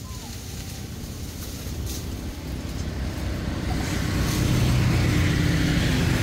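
A motor vehicle's engine approaching, a low steady hum that grows louder, loudest over the last couple of seconds.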